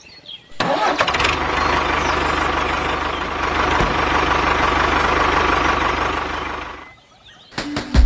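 Tractor engine sound effect: an engine starts up about half a second in, runs steadily, then fades out near the end.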